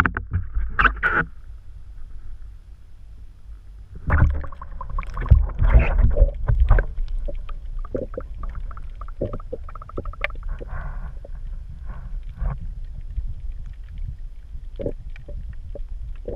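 Muffled water sloshing and gurgling heard through a camera held underwater, with a low steady rumble and scattered knocks and clicks, loudest in a cluster of knocks a few seconds in.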